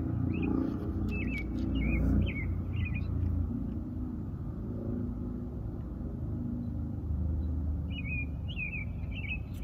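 A small bird chirping in quick, short, warbling notes, in a run over the first few seconds and again near the end, over a steady low rumble.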